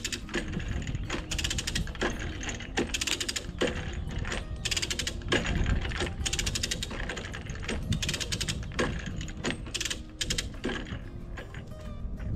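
Ratchet of a hand come-along winch clicking in uneven runs as its handle is cranked back and forth, drawing up a chain and strap to pull a racked wall back toward plumb.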